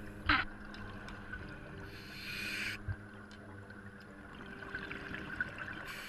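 Scuba diver breathing underwater through a Scubapro regulator: a hissing inhalation about two seconds in, crackly exhaled bubbles a few seconds later, and the next inhalation starting at the very end. A sharp knock near the start is the loudest sound.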